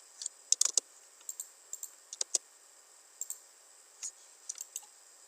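Irregular clicking of a computer mouse and keyboard while drafting in AutoCAD, with a quick cluster of clicks about half a second in and another around two seconds in.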